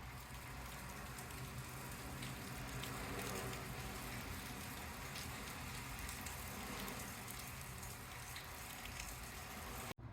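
Steady rain falling, with a few faint ticks of individual drops.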